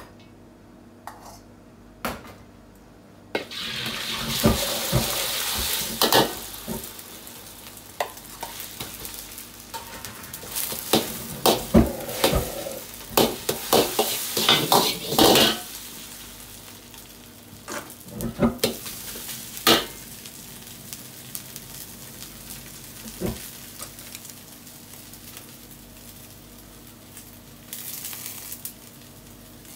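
Beaten egg hitting hot oil in a steel wok, with a sudden loud sizzle about three seconds in. Then a metal ladle scrapes and knocks against the wok in quick strokes as egg and rice are stir-fried, with a short sizzle again near the end.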